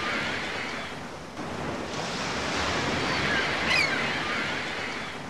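Sea waves washing on a shore in a steady, swelling wash, with a few short high gliding cries near four seconds in, fading out toward the end.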